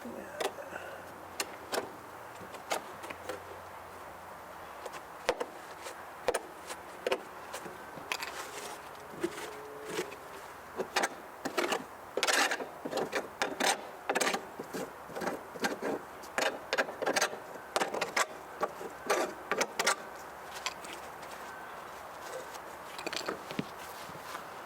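Chisel scraping and knocking caked old grass off a walk-behind lawnmower's deck: a run of irregular taps and scrapes, busiest in the middle.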